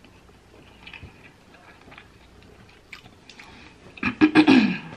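Close-miked chewing of a mouthful of barramundi fish, with soft wet mouth clicks and smacks. About four seconds in comes a loud, closed-mouth "mmm" that falls in pitch, an appreciative hum at the taste.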